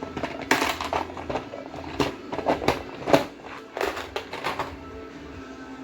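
Hard objects clicking and knocking as they are handled, about a dozen sharp clicks in irregular clusters that stop about four and a half seconds in, over a steady low hum.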